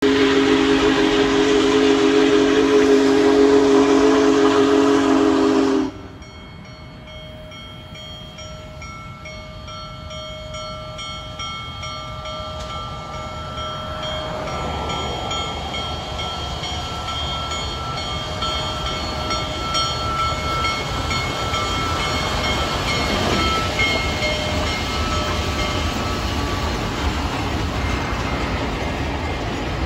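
Union Pacific 4014 Big Boy steam locomotive blowing its steam whistle, a loud chord of several tones that cuts off suddenly about six seconds in. Then a bell rings about twice a second while the train passes, with a rumble of wheels and running gear growing louder.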